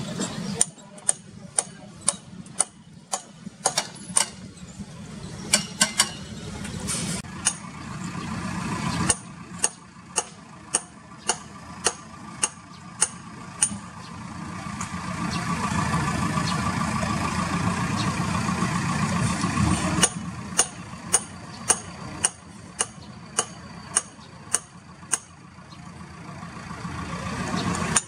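Airbus A330 jet engines heard during landing and rollout: a steady rumble with a whine that swells loudest for several seconds after touchdown. Runs of sharp mechanical clicks, two or three a second, sound over it in several stretches.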